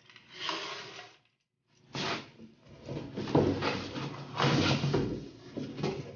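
Handling noises: a run of irregular scrapes, rattles and knocks in short bursts, busiest from about three seconds in.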